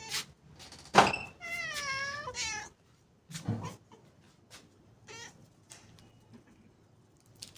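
A stray cat meows once, a long wavering meow lasting about a second, right after a sharp knock. A dull thump follows, then a few light taps and clicks as the cats crowd the feeding plate.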